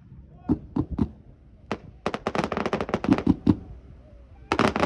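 Aerial fireworks going off: a few separate bangs in the first second, then a rapid string of pops and bangs, a brief lull, and another quick volley near the end.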